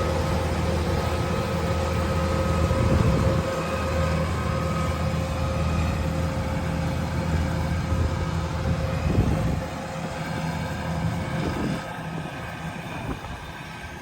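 Kubota DC-108X combine harvester running: a steady diesel engine drone with a steady high whine over it. The low drone drops away about two-thirds of the way through, and the whole sound grows quieter toward the end.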